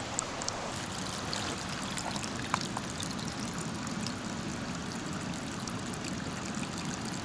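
Water from a mountain spring seep trickling and running steadily, with a few faint clicks.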